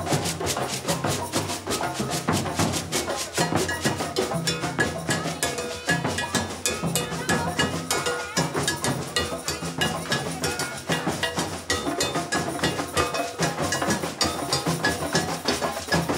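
Candomblé ritual music: drums and a struck metal bell keep a fast, steady rhythm while a group of voices sings.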